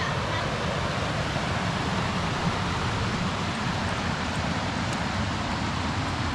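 Steady rushing of a fast-flowing creek, a constant even hiss with no change in level.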